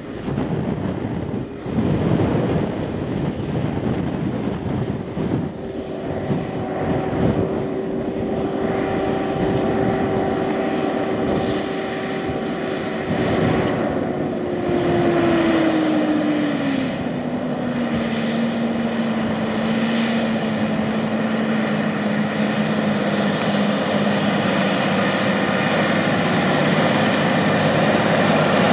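Deutz-Fahr 9340 TTV tractor's 7.8-litre six-cylinder turbodiesel running under load while pulling a high-speed disc through the soil, growing louder as it comes closer. A steady whine in the engine note drops in pitch about halfway through.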